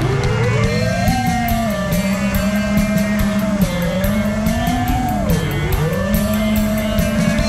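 iFlight Nazgul5 FPV quadcopter's motors and propellers whining. The pitch climbs sharply at the start, then rises and falls with the throttle, dipping about five seconds in. Background music with a steady beat plays throughout.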